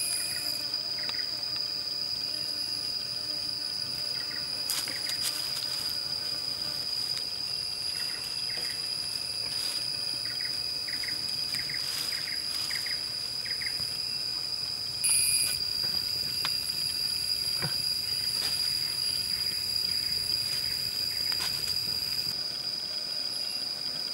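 Insects droning steadily at one high pitch, with short chirps repeating and scattered sharp clicks.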